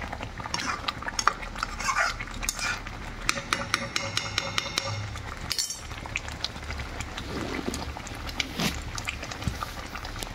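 A slotted steel spatula stirring and scraping thick curry gravy in a metal kadhai, with many clicks and taps of metal against the pan and a quick run of taps in the middle.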